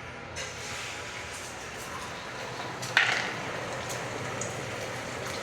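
Food sizzling in a hot frying pan, a steady hiss with small crackles that starts about half a second in, and a sudden louder burst about three seconds in that quickly dies back.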